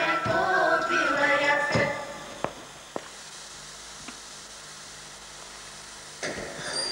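A folk ensemble's voices chanting an urătură, the Moldovan New Year well-wishing verse, breaking off about two seconds in. Then a few faint clicks over a steady hiss and hum, with a short burst of noise near the end.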